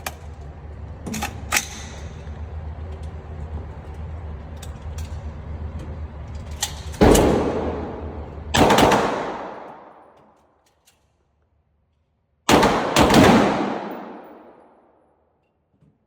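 Radical Firearms RF-15 AR-15 rifle firing four shots, each with a long echoing tail: two about a second and a half apart in the middle, then two in quick succession near the end. A few light clicks and a steady background hum come first.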